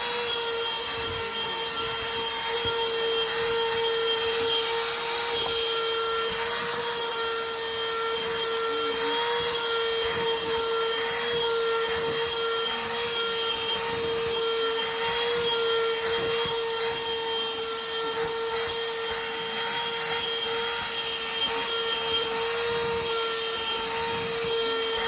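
Vacuum cleaner running steadily, its motor whining at one constant pitch over a rushing hiss of air, as it is run over a cat's fur.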